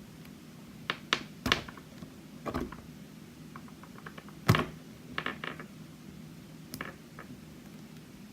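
Metal tweezers clicking and scraping against a padlock's core and C-clip while prying at the clip, in scattered sharp ticks; the loudest click comes about four and a half seconds in.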